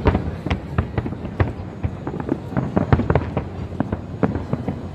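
Aerial fireworks display: many shells bursting in quick, irregular bangs, several a second, over a continuous low rumble of overlapping bursts.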